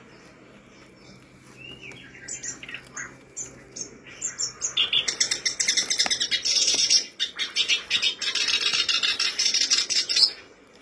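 Black-browed reed warbler singing: a few short scattered notes at first, then from about five seconds in a fast, loud, continuous chattering song, with a brief break partway through, that stops just before the end.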